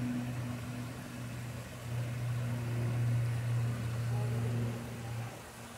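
A steady low mechanical hum, like an idling engine, swelling and fading a little and cutting off near the end.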